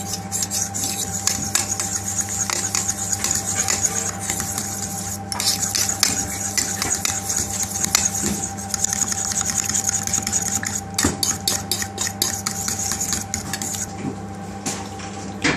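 A utensil rapidly beating a runny egg, oil and spice sauce in a stainless steel bowl: quick, irregular clicks of metal against the bowl with wet sloshing. It stops about 14 seconds in.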